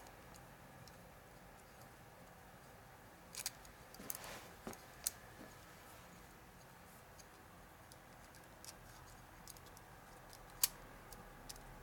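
Piston rings on a motorcycle piston being worked off by hand, giving a few faint metallic clicks and a short scrape over quiet room tone, with one sharper click near the end.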